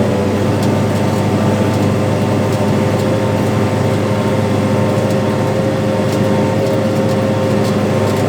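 Farm tractor engine running steadily under load in first gear, pulling a planter, with an even pitch throughout.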